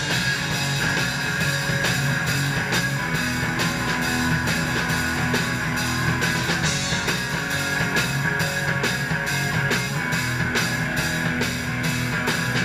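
Live rock band playing loud in a small room: electric guitars over a drum kit keeping a steady beat.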